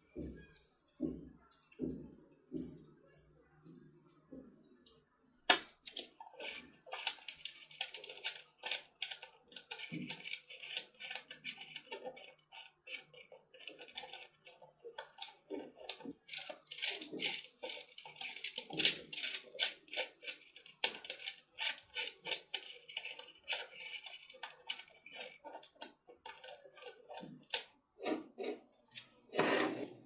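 Small magnetic metal balls clicking and snapping together as they are joined into rings and a stacked cylinder: a fast, irregular run of sharp clicks, sparse with a few duller knocks in the first few seconds and dense from about six seconds on.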